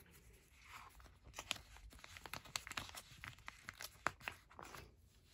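Clear plastic binder pocket pages rustling and crinkling as photocards are slid into the pockets, with a run of small clicks and taps, the sharpest about four seconds in.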